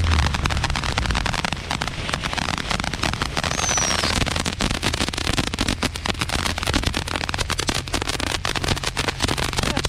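Fireworks and firecrackers crackling and popping rapidly, with one whistling firework falling in pitch about four seconds in. Under them the Infiniti G37's V6 engine hums low, fading after the first second and returning faintly near the end.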